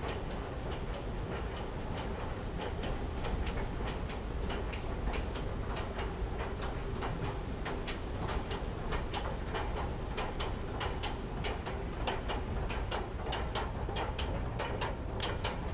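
Metro station escalator running: a steady hum with a stream of sharp, irregular clicks that come more often in the second half.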